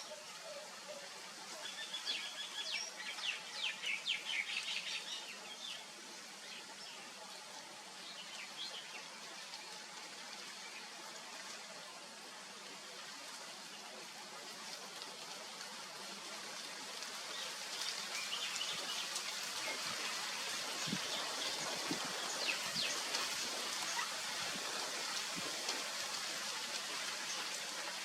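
Birds chirping in quick bursts, a busy cluster a few seconds in and scattered calls again in the second half, over a steady background hiss.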